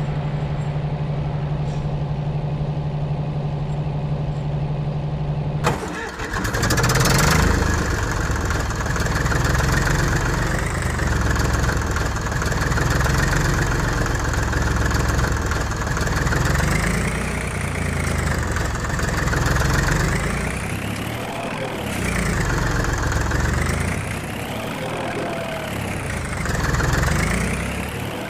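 Engine sound: a steady low hum for the first few seconds, then a sudden switch to louder, rougher running whose pitch rises and falls every two to three seconds, like repeated revving.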